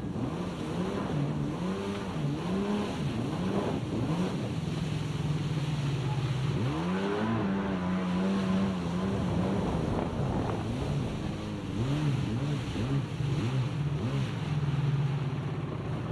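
Jet ski engine running at changing revs, its pitch rising and falling over and over as the craft slows from cruising speed to a crawl, over a hiss of wind and water.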